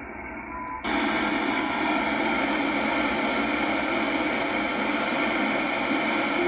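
Shortwave receiver tuned to the CHU time signal on 3330 kHz through an end-fed wire antenna: steady static and hum, with one of the station's short 1 kHz second beeps barely above the noise. About a second in, the noise jumps louder and brighter as a receiver setting is changed, and it then stays steady, burying the signal.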